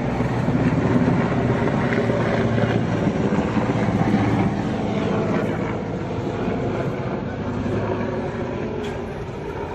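Motorcycle engine running and pulling away, loudest in the first few seconds and fading after.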